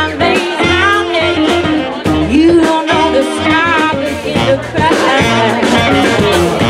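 A woman singing a melody with vibrato on the held notes, backed live by a band with upright bass and drums.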